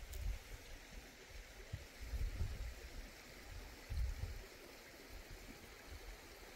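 Mountain river water rushing steadily, with low rumbles coming and going, the strongest about two and four seconds in.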